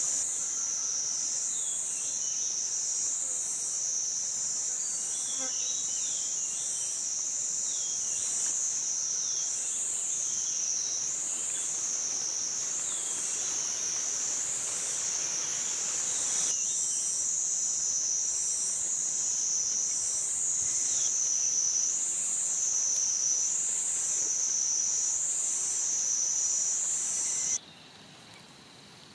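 A loud, high insect drone that swells and fades about once a second, cutting off suddenly near the end.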